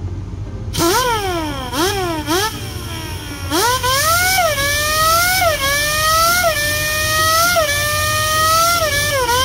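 Formula One racing car engine accelerating hard through the gears. Its high-pitched note climbs and then drops back at each upshift, roughly once a second.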